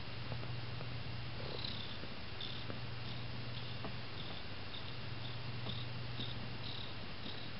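Domestic cat purring as its belly is rubbed, a low steady purr with brief dips every few seconds, the sound of a contented cat.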